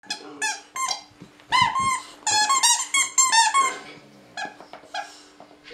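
A squeaky chicken-leg dog toy squeaking over and over as a bulldog chews it. The squeaks come in a quick run that is fastest through the middle and thins out to a few fainter ones near the end.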